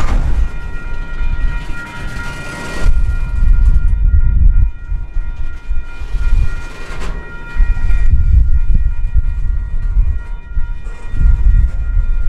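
Double-stack intermodal freight train's well cars rolling past: a heavy rumble of steel wheels on rail that swells and fades in waves, with a steady high ringing held above it.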